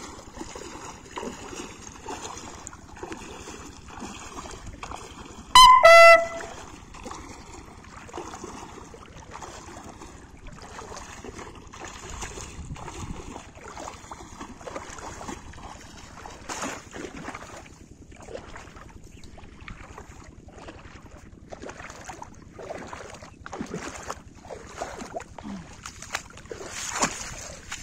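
Splashing footsteps of a person wading through shallow water, with a short, very loud horn-like tone about six seconds in.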